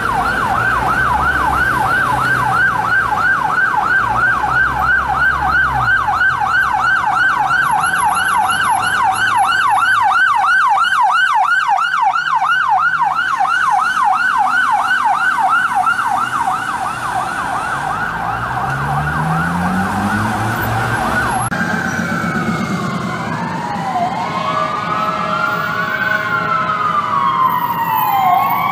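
Emergency vehicle siren on a fast yelp, sweeping up and down several times a second, with traffic noise underneath. About three-quarters of the way through it changes abruptly to several sirens on a slow wail, each rising and falling over a couple of seconds and overlapping one another.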